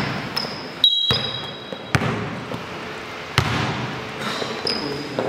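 Basketball bouncing on a court during one-on-one play, with a handful of separate thuds at uneven intervals and short high squeaks of sneakers on the floor.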